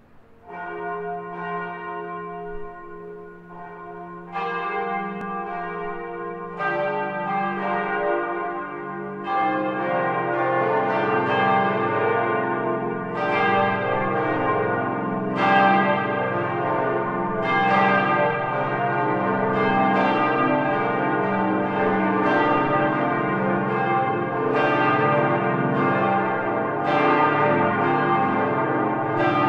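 Church bells ringing: a single bell at first, others joining one after another over the first ten seconds or so, then all ringing together in a full, steady peal.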